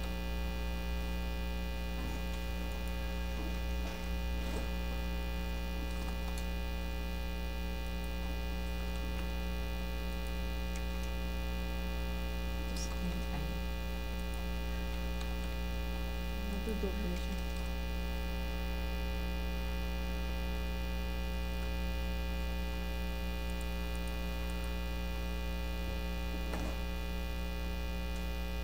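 Steady electrical mains hum with a dense stack of overtones, interference picked up in the recording, with a few faint clicks along the way.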